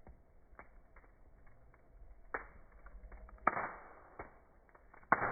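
Wood fire crackling with scattered sharp pops; the two loudest snaps come about three and a half and five seconds in, each followed by a short hiss.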